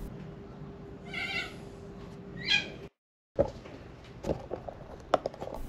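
Two short high-pitched animal calls about a second apart, the second sliding down in pitch, followed by a few light clicks and knocks.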